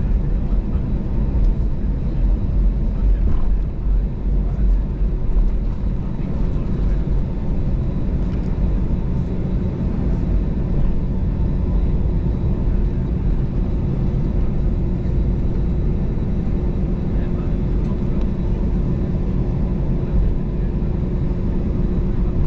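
Cabin noise of an Airbus A320-214 taxiing, heard inside the cabin: its CFM56 engines running at taxi power, with a steady low rumble and a faint steady hum.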